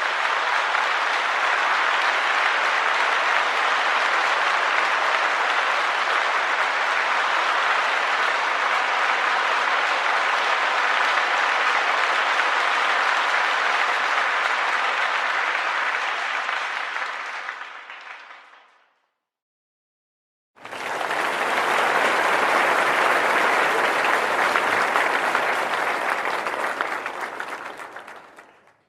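Crowd applause, dense steady clapping by many hands, that fades out about two-thirds through. After a brief silence a second round of crowd applause starts, fuller in the low end, and fades away near the end.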